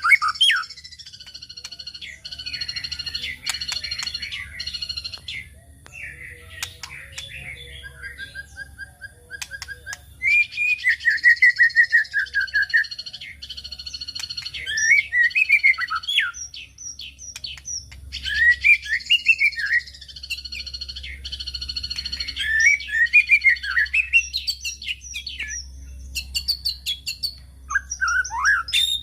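White-rumped shama (murai batu) singing a long, varied song: loud runs of rapid repeated whistled notes alternating with softer warbling phrases. This is the kind of song played as a 'pancingan' lure to stimulate caged shamas to sing.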